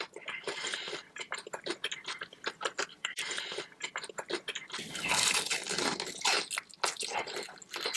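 Close-miked eating: a person biting and chewing crunchy food, with many small wet crackles and a louder stretch of crunching about five seconds in.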